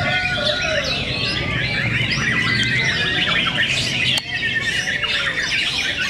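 Several caged white-rumped shamas (murai batu) singing against one another in a song contest. Their songs make a dense, unbroken tangle of overlapping whistles, gliding notes and rapid repeated notes.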